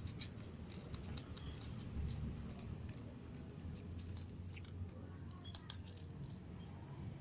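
Cats crunching dry kibble from a plastic tub: irregular small crisp clicks, with two sharper clicks a little past halfway.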